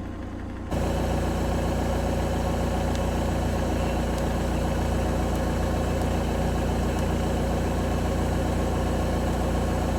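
Kobelco SK150 Mark III excavator's diesel engine idling steadily, coming in suddenly louder a little under a second in.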